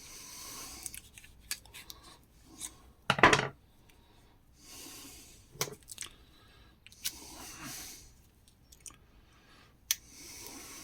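Metal fridge parts, among them a solid aluminium block, being handled: several sharp clicks and knocks, the loudest about three seconds in, and a soft rubbing noise every few seconds.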